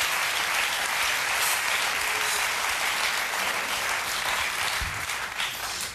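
Studio audience applauding, a steady dense clapping that eases a little near the end.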